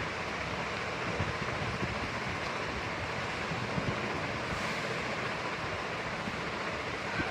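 Steady rushing background noise with no speech, such as a room fan makes, with a light knock near the end.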